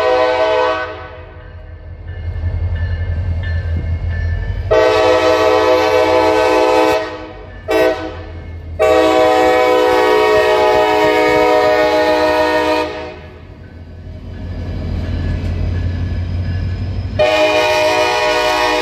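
A CSX diesel locomotive's multi-note air horn blows the grade-crossing signal. A blast ends about a second in, then come a long blast, a short one and another long one, and a fresh long blast starts near the end. Between the blasts the locomotive's diesel engine rumbles, growing louder as it nears.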